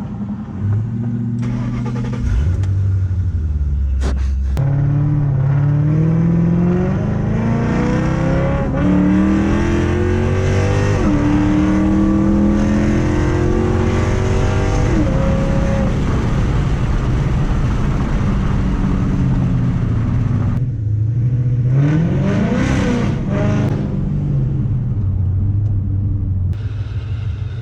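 Procharged 2006 Mustang GT's 4.6-litre V8 on straight pipes running loud, its pitch climbing in several long pulls that each drop back, with a steadier stretch before a last rise near the end.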